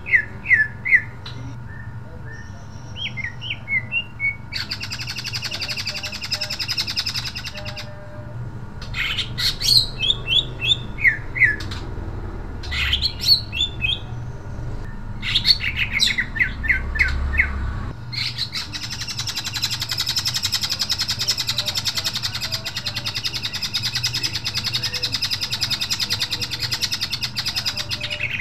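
Male greater green leafbird (cucak ijo) in full song: runs of quick, sharp, piercing notes alternate with stretches of dense, rapid chattering. The longest chattering stretch starts about two-thirds of the way in and lasts to the end.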